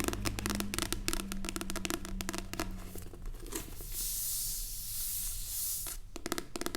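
Close-miked paper handling: quick taps and crinkles on a paper leaflet, then a steady rubbing rustle for about two seconds.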